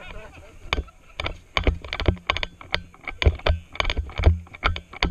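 Footsteps on dry, gravelly dirt with the walker's gear rattling and knocking, an uneven run of two to four sharp knocks a second.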